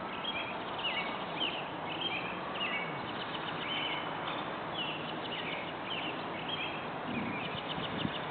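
Birds chirping over and over, with many short high calls through a steady background hiss.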